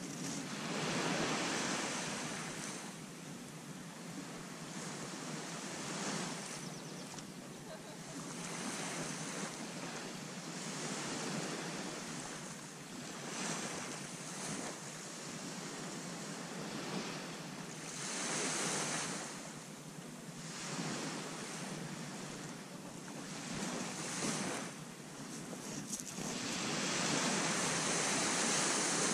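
Small sea waves breaking and washing up the beach, the hiss rising and falling in surges every few seconds, with wind on the microphone.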